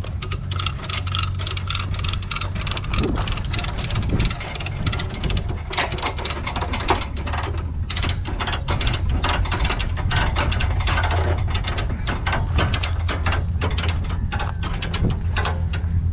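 Rapid, irregular ratcheting clicks from the pulling gear as it draws the car, over a steady low engine hum.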